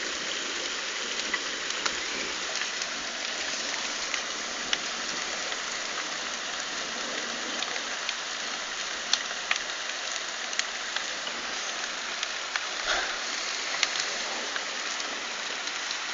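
Hailstorm: hail and rain pelting down as a steady hiss, with many sharp ticks of hailstones striking at irregular moments.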